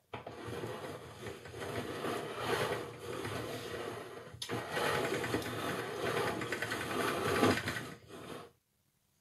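Hand-cranked pasta machine's steel rollers turning as a sheet of semolina dough is fed through on setting four: a steady mechanical whirring with a sharp click about halfway, stopping near the end.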